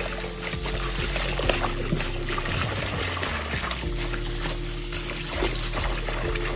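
Kitchen tap running steadily into a stainless steel sink full of water and collard greens, splashing as a hand agitates the leaves, under background music with sustained notes.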